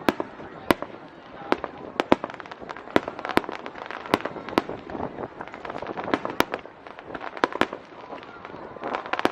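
Aerial fireworks shells bursting in irregular quick succession, sharp bangs about one to two a second.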